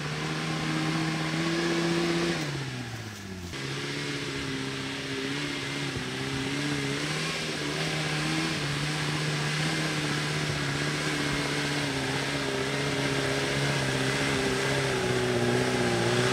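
Off-road vehicle's engine running at steady revs, its pitch sagging about two and a half seconds in and picking back up about a second later; onlookers say the engine lacks breath for the climb.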